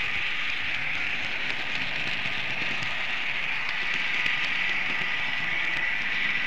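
Märklin model train running along the track, a steady rushing rattle of small wheels on rails with a thin motor whine that grows stronger about four seconds in.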